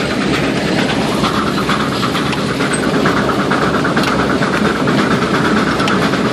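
Steel gang plow being pulled through soil by a steam traction engine, heard from the plow: steady mechanical running with constant rattling and clatter of the plow frame. A higher steady hiss joins about a second in.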